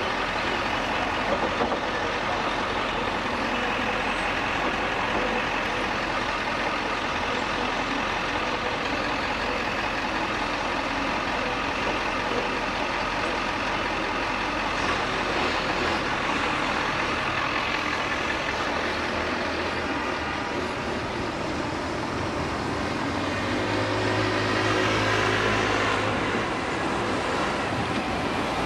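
Busy city street traffic: a steady din of engines and tyres, with a louder engine note rising near the end.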